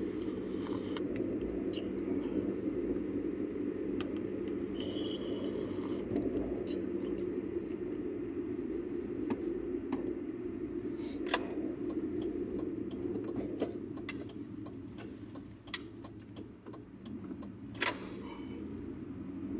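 A car driving, with a steady road and engine rumble heard from inside the cabin and scattered light clicks and rattles over it. The rumble eases off about two-thirds of the way through as the car slows.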